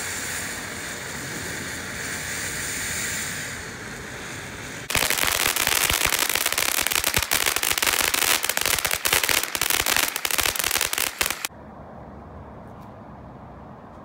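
Consumer ground fountain firework hissing as it sprays sparks, then breaking into loud, rapid crackling about five seconds in. The crackling lasts about six seconds and cuts off suddenly as the fountain burns out.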